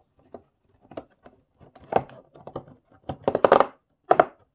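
Cardboard and plastic packaging being torn open and handled, with small LEGO pieces clicking: an irregular run of crackles and clicks that bunches up about three seconds in.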